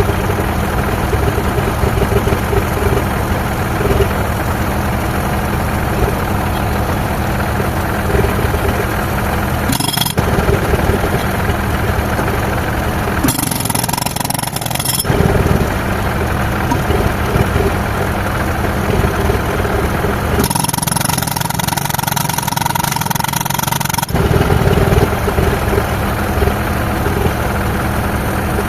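Pneumatic concrete breaker hammering rapidly into concrete, with the tractor-driven air compressor's engine running under it. The hammering stops briefly three times, about ten seconds in, again for a couple of seconds around fourteen seconds, and for several seconds past twenty seconds, when a higher hiss takes over.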